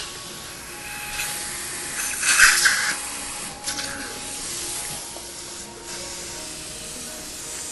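Steady hiss of dental suction and water spray at the surgical site, with a louder spray burst about two seconds in and a short one soon after. The site is being kept wet during the graft suturing.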